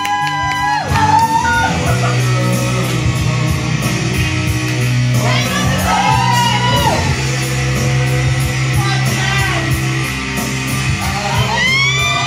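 A song played loud for the routine: a singer's voice, with notes gliding up and down over a sustained bass line and a steady drum beat.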